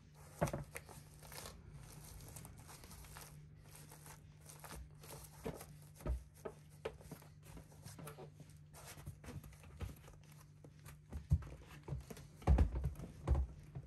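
Handling noise from a padded foot strap on a foil board's deck: rustling, scraping and light clicks as it is pressed and worked by hand, with a few thumps near the end as a bare foot is pushed into the strap.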